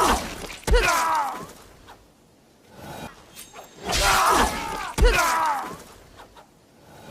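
Katana blades clashing: four sharp metal-on-metal strikes in two pairs, each with a ringing tail.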